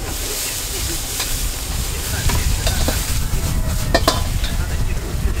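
Noodles and greens sizzling in a steel wok as a metal ladle stirs and scrapes them, with sharp clinks of the ladle against the wok about a second in and several more between two and four seconds in, over a steady low rumble.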